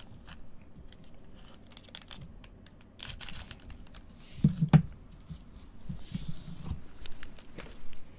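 Foil trading-card packs and cards crinkling and rustling as they are handled with gloved hands, with scattered light clicks and a low thump with a click about four and a half seconds in.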